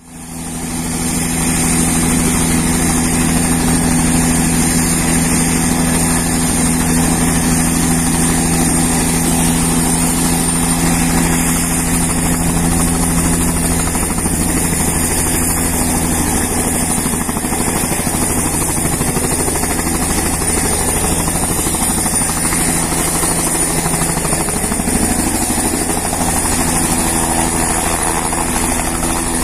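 Bell 505 helicopter's single turboshaft engine and main rotor running, a steady high turbine whine over the rotor noise. Near the end it lifts off into a low hover.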